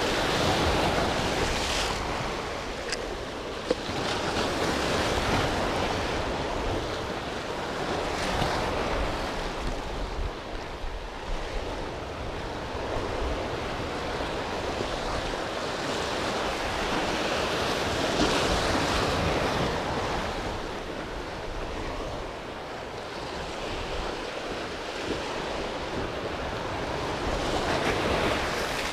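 Sea waves washing against a rocky shore, the rush swelling and fading every few seconds, with wind buffeting the microphone. A single sharp click a few seconds in.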